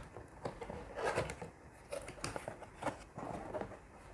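Close-up handling sounds: irregular rustles, scrapes and light clicks of objects being moved by hand, a little louder about a second in and again past the middle.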